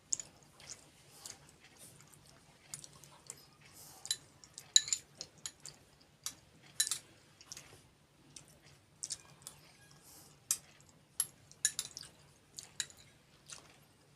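Close-miked eating sounds: irregular wet mouth clicks and smacks of someone chewing and slurping kheer with puri. A faint steady hum runs underneath.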